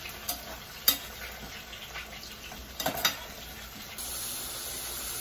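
Diced potatoes frying lightly in mustard oil and ghee with a steady sizzle, while a metal spoon stirs them, clinking sharply against the pot about a second in and again near three seconds.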